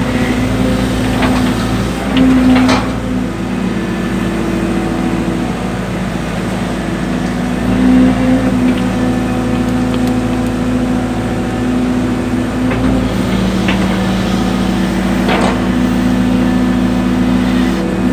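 Excavator's diesel engine running steadily under hydraulic load while digging, its pitch shifting slightly now and then. A few short knocks come about one, three and fifteen seconds in.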